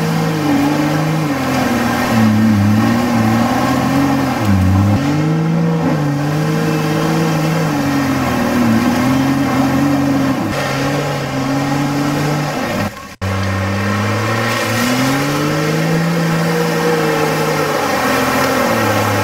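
Toyota Land Cruiser 4WD engine working under load on a steep off-road hill climb, its revs rising and falling again and again as the driver feathers the throttle. The sound breaks off for an instant about thirteen seconds in, then picks up again.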